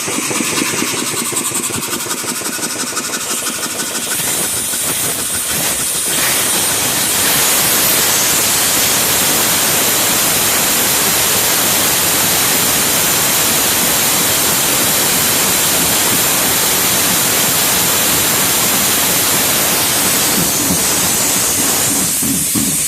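Compressed air hissing out of an open valve on a Roberts air compressor. It grows louder about four and then seven seconds in, holds steady, and eases off near the end.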